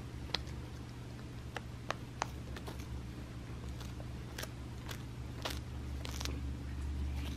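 A cat chewing a whole dried capelin fish, with irregular crunches and crackles as it bites through the dry fish.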